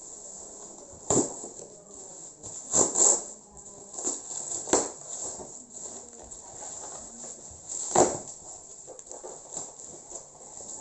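A handful of sharp, irregular knocks and clicks: one about a second in, a quick pair about three seconds in, another near five seconds and the loudest about eight seconds in.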